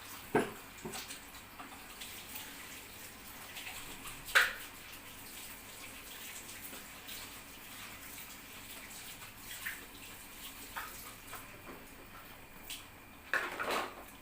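A pot of beans simmering with a soft, watery bubbling, broken by scattered clicks and knocks of utensils against the pot; the loudest knock comes about four seconds in, and a quick run of knocks comes near the end.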